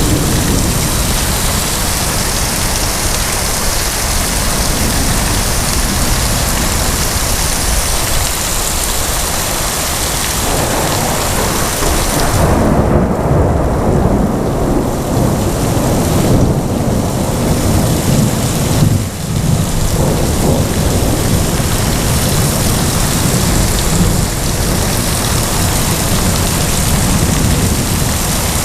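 Heavy rain falling steadily, with a long roll of thunder rumbling in from about a third of the way through and dying away after about two-thirds.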